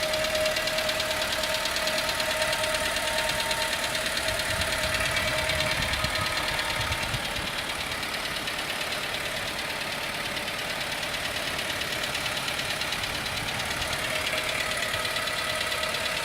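Car engine idling with a rapid, even metal tapping noise that doesn't sound good, which the owner takes for engine knock.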